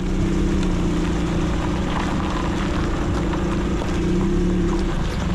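A car rolling slowly over broken, gravel-strewn asphalt, its engine running with a steady hum while the tyres crackle over loose grit.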